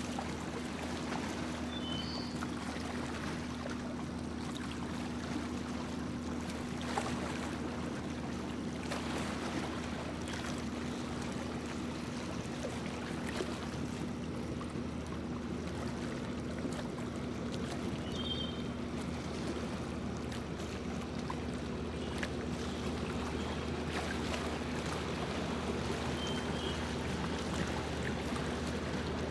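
A small boat's motor running steadily under way, a constant hum at one pitch, with water washing along the hull.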